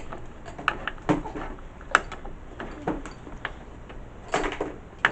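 Irregular clicks and knocks of hardware being handled in an open desktop PC case, with the loudest knock about two seconds in and a short clatter a little after four seconds.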